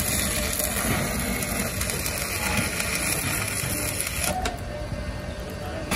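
Electric arc welding on a steel truck wheel rim: the arc's steady sizzling crackle, its higher hiss thinning out about four seconds in.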